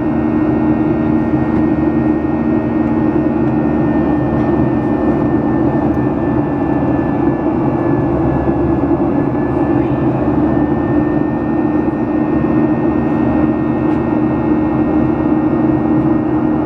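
Boeing 737 airliner's jet engines running at climb power, heard inside the cabin as a steady roar with a low, even hum.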